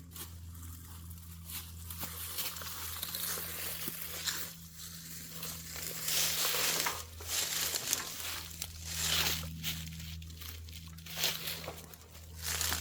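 Irregular rustling and crunching, louder in several surges, over a steady low hum.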